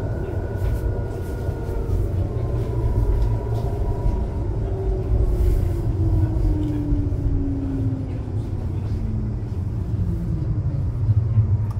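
Inside a moving light-rail tram: the steady low rumble of the wheels and running gear, with the electric traction motors' whine gliding steadily down in pitch as the tram slows.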